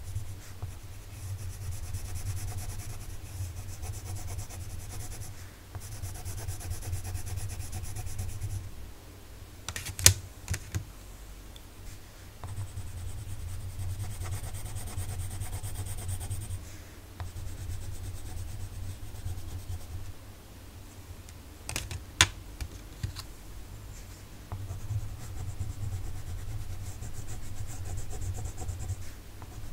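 Coloured pencils scribbling back and forth on sketchbook paper, in stretches of a few seconds with short pauses. Two sharp clicks come as the pencil is changed for another colour.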